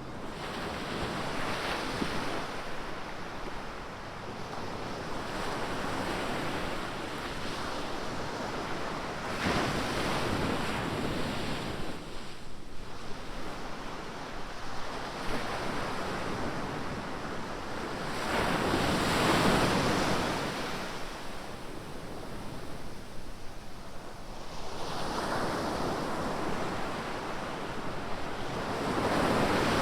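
Ocean surf breaking on a beach: a continuous wash of noise that swells with each breaking wave every several seconds and ebbs between them, the loudest wave about two-thirds of the way through.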